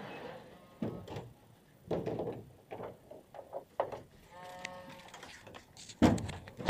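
Handling noise at close range: rustles, light knocks and bumps against the capsule pod's plastic shell, with a short pitched squeak or creak about four and a half seconds in. A louder rustling bump comes near the end.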